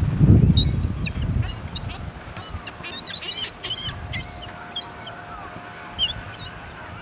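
A flock of gulls calling: many short, high squealing calls, some in quick runs, scattered throughout. A low rumble on the microphone is the loudest sound in the first second or so.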